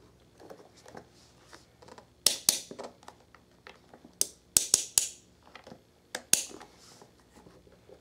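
Sharp plastic clicks and knocks from a Lasko 12-inch oscillating table fan being handled and swung round by its grille and motor housing. Faint ticks at first, then loud clacks about two seconds in and a quick run of them around the middle, with one more near the end.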